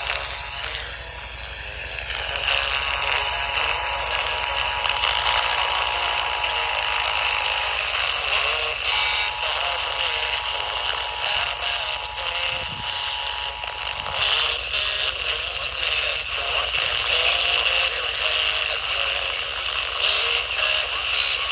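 Weak, distant FM radio reception, mostly hiss and crackling static. Through it the Emergency Alert System two-tone attention signal is faintly heard from about two seconds in, with a short break near eight seconds, and it stops about fourteen seconds in.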